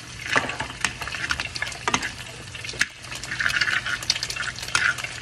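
Metal spoon scraping and clicking against a frying pan while food sizzles in hot oil.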